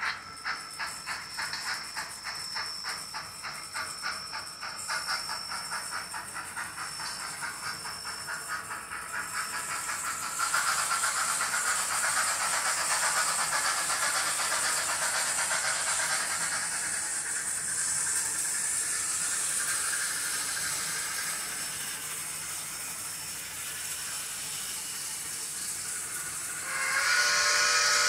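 Model steam locomotive's Tsunami TSU-2200 DCC sound decoder playing steam exhaust chuffs through its speaker. The chuffs quicken as the locomotive picks up speed until they run together into a steady hiss. A louder whistle sounds near the end.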